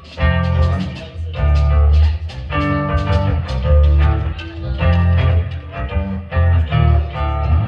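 Live contra dance band playing a tune during a sound check, with heavy bass notes on a steady pulse about once a second and quicker melody notes above.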